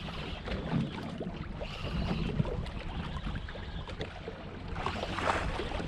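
Wind on the microphone and water washing around a small ski-boat on the open sea, a steady rumbling noise with scattered small ticks and a brief louder gust about five seconds in.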